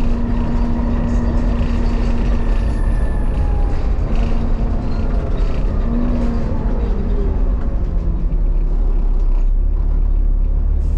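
Volvo B7TL double-decker bus driving, heard from inside the passenger saloon: a steady engine and drivetrain rumble. A whine slides in pitch about halfway through, and the low rumble grows heavier near the end.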